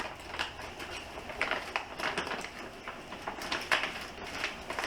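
Plastic packaging rustling and crinkling in quick, irregular crackles as gauge parts are handled and repacked.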